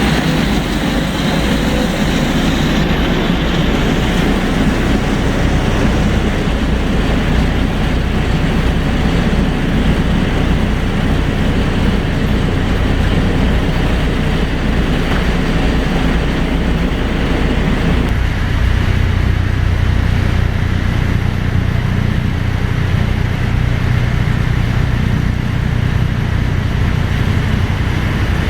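Heavy engine running steadily with a deep rumble; about two-thirds of the way through the middle of the sound drops away and the low rumble grows stronger.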